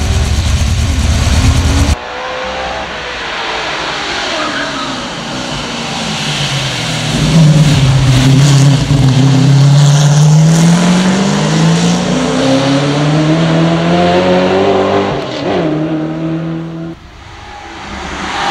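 Chevrolet Camaro Z28 V8 racing hard up a hillclimb: a heavy, loud rumble at the launch, then the engine note repeatedly climbing and falling back as it shifts up through the gears, heard in several abruptly cut stretches.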